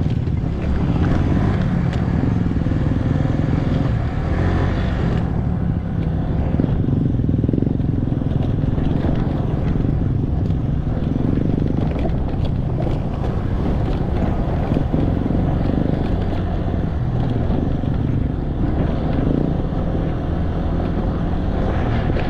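Motorcycle engine running steadily while riding, with a continuous rush of road and wind noise over it.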